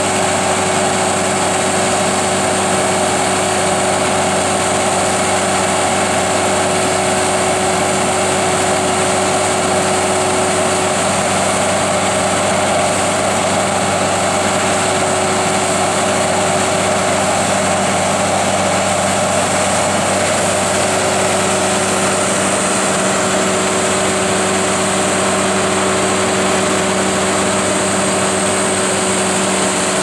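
The logger/baler's 175-hp Cummins 5.9 inline-six diesel power unit running steadily at constant speed, driving the hydraulics as the loader boom and grapple move.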